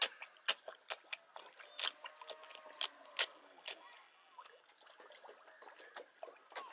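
Small drops and plops in shallow lake-edge water: an irregular run of sharp little clicks and plinks, several a second, over a light hiss.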